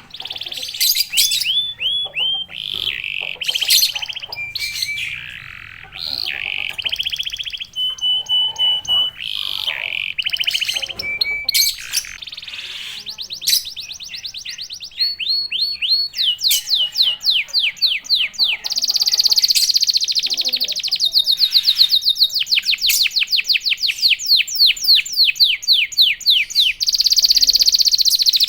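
Domestic canary singing in full song: a varied run of short phrases changing every second or two, then long, rapid trills of fast-repeated notes, louder in the second half.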